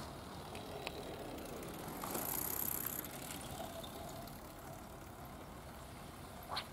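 Outdoor background noise: a steady low rumble, with a brief louder hiss about two seconds in and a sharp click near the end.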